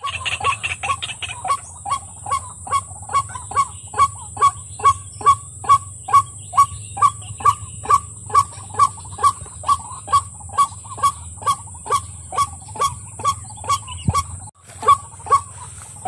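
White-breasted waterhen (ruak-ruak) calling: a long run of short, evenly repeated honking croaks, about two and a half a second, over a steady high whine.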